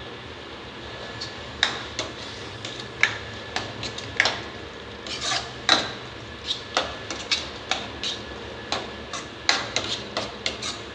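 Stainless steel spoon stirring thick masala in a kadai, knocking and scraping against the pan in irregular sharp clinks, one or two a second, over a steady low hiss.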